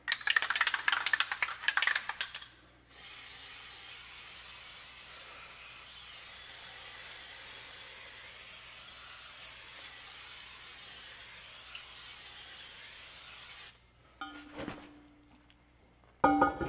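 Aerosol spray can shaken with a dense rattle, then sprayed in one long steady hiss of about ten seconds that cuts off suddenly. A few small clatters follow and a single loud metal knock near the end.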